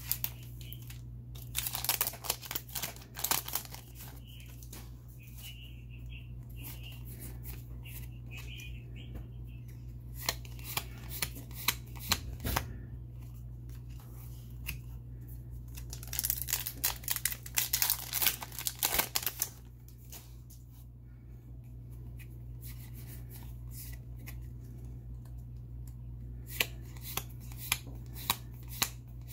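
A foil Yu-Gi-Oh booster pack wrapper crinkling and tearing open, then playing cards sliding and flipping against each other in the hands, in several short bursts. A steady low electrical hum lies underneath.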